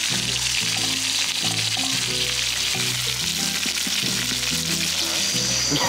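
Corvina fillets sizzling in hot oil in a cast-iron skillet, a steady hiss throughout. Background music plays underneath.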